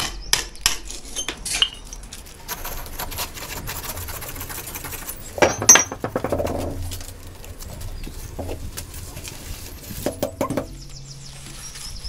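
Hammer striking a steel chisel to cut out the mortar joints around a brick: a quick run of sharp metallic strikes in the first couple of seconds, one loud ringing clang about five and a half seconds in, and a few more strikes near ten seconds.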